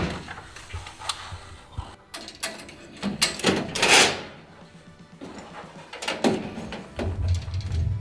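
Metal ceiling panel being handled into a steel suspension grid: scraping slides and knocks as metal rubs on metal, the loudest a long scrape about four seconds in.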